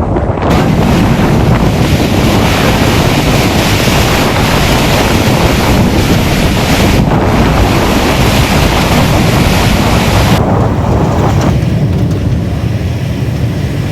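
Kalbaisakhi storm wind blowing hard over the microphone: a dense, loud roar of noise. The high hiss drops away about ten seconds in, leaving a lower rumble.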